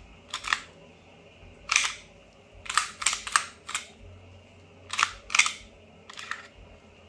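Slide of a WE T-Rex Hi-Capa 5.1 airsoft gas blowback pistol racked by hand against its new, stiffer 150% recoil spring: about nine sharp mechanical clacks, some in quick pairs as the slide goes back and snaps forward.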